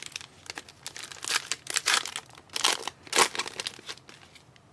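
Trading-card pack wrapper crinkling and tearing as it is ripped open, a run of irregular rustles that is loudest in the middle and fades near the end.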